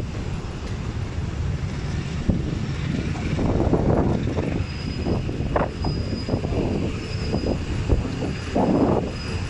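Freight train of container flat wagons rolling past on the rails: a steady rumble of wheels with irregular clanks and knocks from the cars, and a faint high whine now and then.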